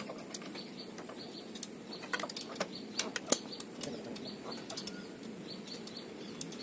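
Scattered light clicks and taps, the loudest a little after three seconds in, as hands and tools work on a motorcycle engine, with short high chirps repeating behind them.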